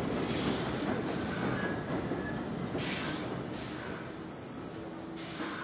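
R62A subway train running past, its steel wheels on the rails making a steady rumble. From about two seconds in, a high steady wheel squeal sounds over the rumble, with several short higher screeches.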